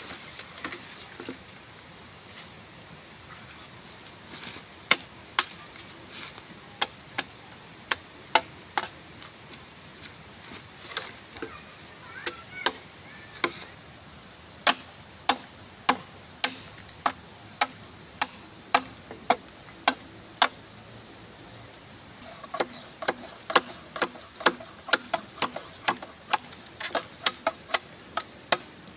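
Machete chopping into a green bamboo pole: single sharp blows about one to two a second, quickening into a rapid run of chops near the end.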